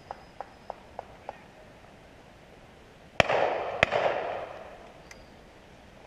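Shotgun fired twice in quick succession, about two-thirds of a second apart, each report echoing and dying away over a second or so. A few faint ticks are heard beforehand.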